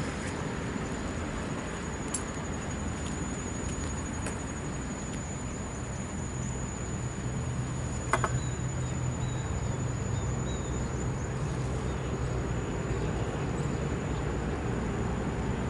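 Outdoor ambience: a steady high-pitched insect trill over a low rumble, with a single sharp click about eight seconds in.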